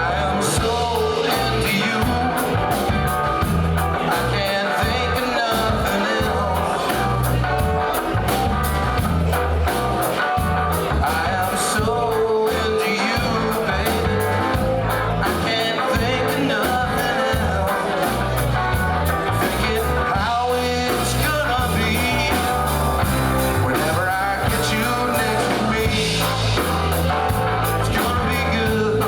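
Rock song with singing, guitar and drums playing steadily on a push-button radio.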